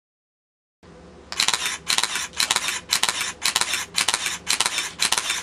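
Camera shutter firing in a rapid, evenly spaced burst, about three to four shots a second, starting a little over a second in after a moment of silence.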